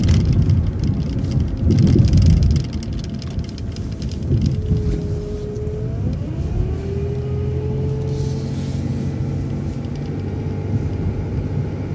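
City transit bus pulling away and driving on, with a heavy low engine rumble in the first couple of seconds. A steady drivetrain whine follows; it dips and climbs back up about halfway through as the transmission shifts, then holds steady over the engine hum.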